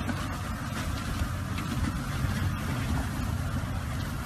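Engine of an SUV on huge low-pressure balloon tyres running steadily as it crawls across gravel into a shallow river.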